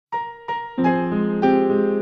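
Piano opening the introduction to a sung hymn: two single high notes, then full sustained chords from about a second in.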